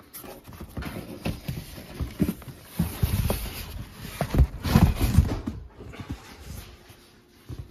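Cardboard handling: a small white box scraping and rubbing against a corrugated shipping carton as it is pulled out and turned over in the hand, with irregular rustles and light knocks, loudest around the middle.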